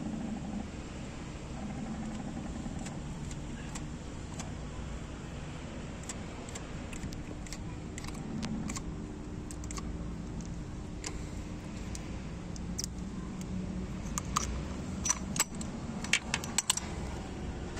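Small metal objects clinking and jingling: scattered light metallic clinks that crowd into a quick run of sharper, louder ones near the end, over a steady low machine hum.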